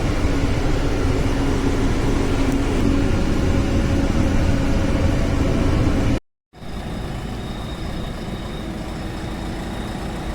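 Diesel engine of a JCB 3DX backhoe loader running steadily. About six seconds in the sound cuts out for a moment, then returns quieter with a faint high steady tone.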